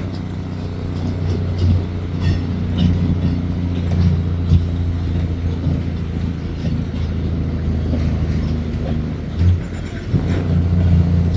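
Heavy diesel engine running steadily, a low rumble with a few light knocks.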